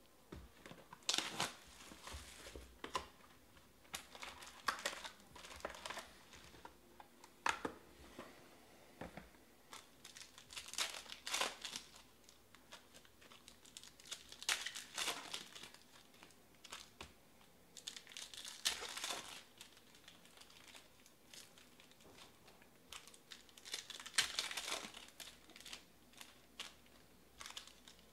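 Foil trading-card packs of 2020 Panini Chronicles Draft Picks football being torn open and crinkled by hand, in irregular bursts of rustling and tearing.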